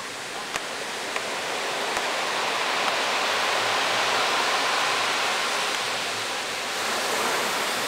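Ocean surf breaking and foamy backwash washing up a sandy beach, a steady rush that swells over the first few seconds and eases a little near the end.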